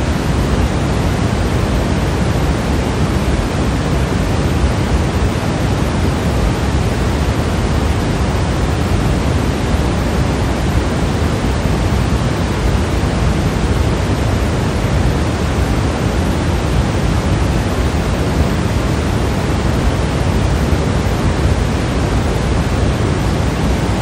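Steady pink noise: an even, unchanging hiss, fullest in the low end and thinning toward the highs.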